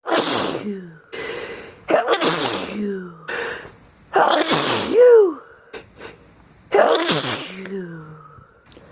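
A person in a sneezing fit: four loud, voiced sneezes about two seconds apart, with sharp breaths between them. The fit is set off by a strong fragrance room spray.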